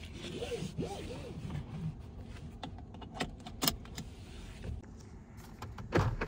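Cabin of a Honda Prologue electric car as it gets under way. There is no engine sound, only quiet cabin noise with a few sharp clicks in the middle and a heavier thump near the end.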